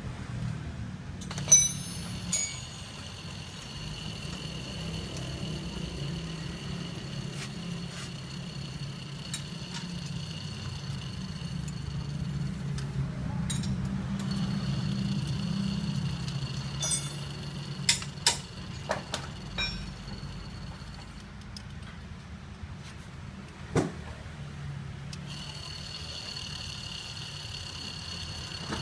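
Peugeot 406 engine idling with a steady low hum. A high, steady whine starts and stops three times over it, and there are scattered sharp clicks and knocks.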